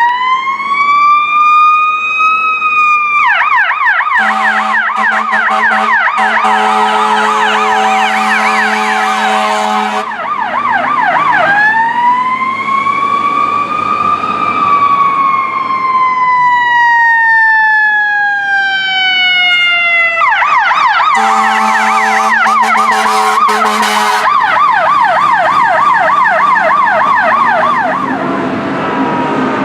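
Emergency vehicle electronic sirens on a call, switching between a slow wail that rises and falls and a fast yelp. A fire apparatus air horn blasts over the yelp twice, a long blast of about six seconds and a shorter one of about three seconds.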